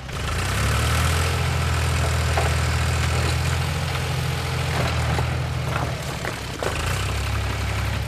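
Heavy engine of a wheel loader running steadily: a low, even rumble with a few faint clanks, fading out near the end.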